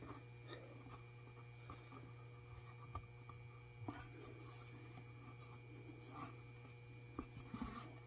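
Faint rustling and small clicks of hands handling macramé cord and leather cord on a macramé board, over a steady low hum.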